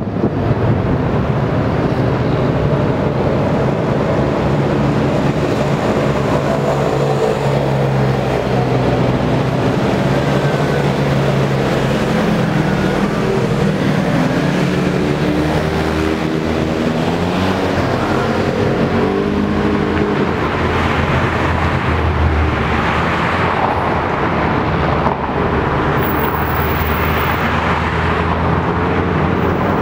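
Engines of vehicles driving past along a street. About halfway through, engine notes rise and fall as two side-by-side utility vehicles pass close by, then a rushing, noisier pass follows.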